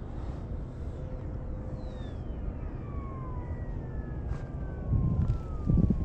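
Electric ducted fan of a 3D-printed RC F-16 jet whining and falling steadily in pitch as it throttles back on the landing approach, over low wind rumble on the microphone. A couple of low thuds come near the end.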